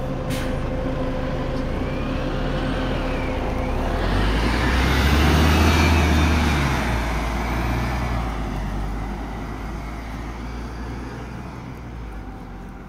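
Scania articulated city bus with a compressed-natural-gas engine and ZF Ecolife automatic gearbox pulling away from the stop. The engine note builds to its loudest about five to six seconds in, then fades as the bus drives off.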